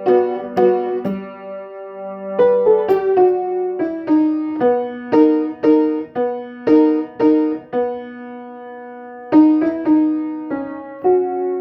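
Piano played slowly: single notes and chords struck about one or two a second over a held low note, each left ringing. A chord is held for a couple of seconds about two-thirds of the way through before the playing goes on.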